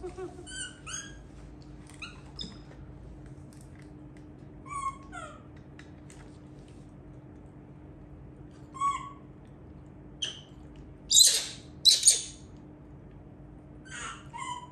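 Baby macaque giving short, high-pitched squeaks and chirps every few seconds, with two louder, rougher squeals close together about three-quarters of the way through.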